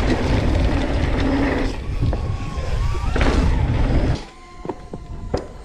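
Mountain bike riding a dirt jump trail: a steady rumble of tyres and wind rushing over the microphone that drops away suddenly about four seconds in. A faint whine and a few sharp clicks follow.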